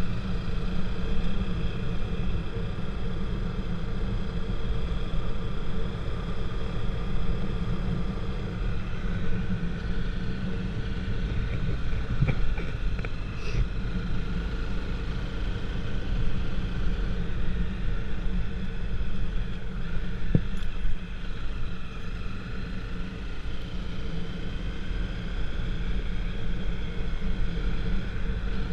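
Motor vehicle travelling at a steady pace: continuous low rumble with a steady engine drone whose pitch shifts slightly now and then.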